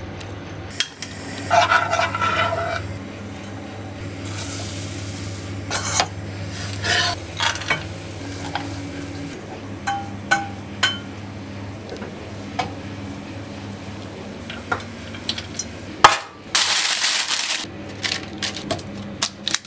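A metal spoon clinks, knocks and scrapes against a saucepan and baking tin while a sticky oat mixture is stirred and spooned out. Scattered clicks and one ringing clink are joined by two short hissing rustles, over a steady low hum.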